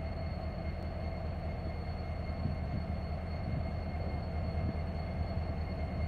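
Norfolk Southern diesel-electric locomotive engine running as the train rolls slowly forward, a steady low drone with no change in pitch or level.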